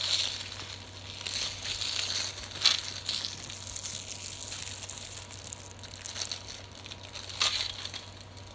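Plastic crinkling and crackling as a marble mash fidget toy, a flexible plastic mesh tube, is handled, with a few sharper clicks.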